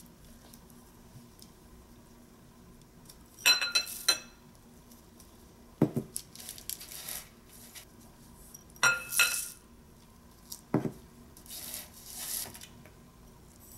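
Shelled sunflower seeds, then pumpkin seeds, poured from a small container into a glass mixing bowl. It happens twice: ringing clinks of the container on the glass, a soft knock, then a short rattle of seeds landing in the bowl.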